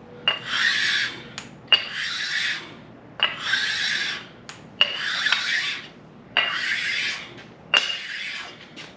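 Sharpening stone, 400-grit side, rubbed by hand in six long back-and-forth rasping strokes across the lubricated deck of a 6.0 LS engine block. There is a sharp tick as each stroke begins.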